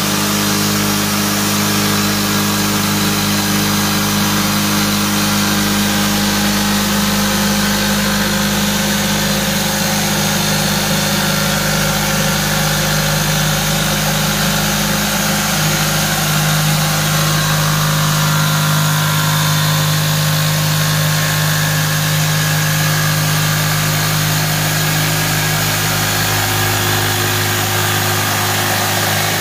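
Corded jigsaw cutting through a door panel, its motor and blade running without a break. Its pitch drops slightly a little past halfway.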